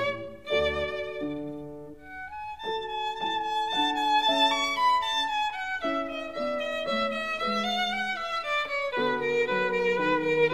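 Background music: a violin playing a melody of held notes, with a brief dip in loudness about two seconds in.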